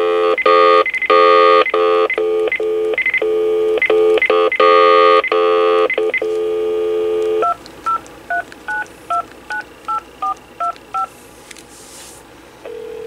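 Dial tone playing through a Sanyo CLT-9581 cordless phone's handset speakerphone, steady but broken by short gaps. About seven seconds in it gives way to a quick run of about ten touch-tone digits as an outside number is dialled.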